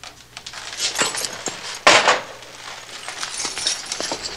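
Plate and mug clinking on a serving tray, with small clicks and rattles of metal, and a short, louder clatter about two seconds in.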